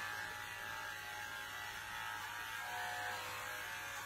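Andis electric pet clipper running steadily with a buzzing hum as it trims the hair on a Shih Tzu's head.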